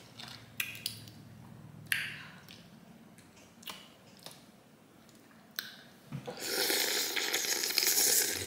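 Boiled crawfish being peeled by hand, with small wet cracks and squishes of shell. About six seconds in, a loud wet slurp lasting about two seconds as a crawfish head is sucked.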